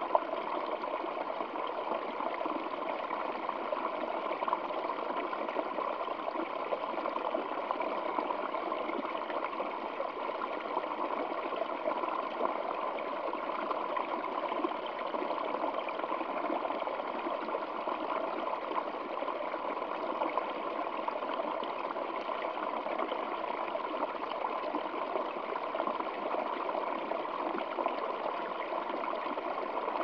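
Small stream splashing and trickling over rocks in a little cascade: a steady, even rush of water.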